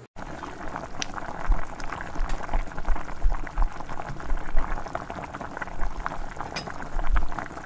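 Steel spoon stirring a thick mix of tomato ketchup, Schezwan sauce and mayonnaise in a ceramic bowl: continuous wet squelching made of many small clicks, with an occasional sharper tick of the spoon against the bowl.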